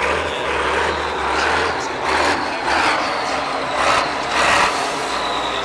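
Diesel engine of an off-road trial truck working hard under load, revving in several loud surges over a steady low rumble, with a faint high whine near the end.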